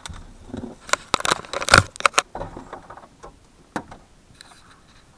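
A quick flurry of sharp clicks and knocks about a second in, then a single knock a little later: handling noise inside a vehicle cab.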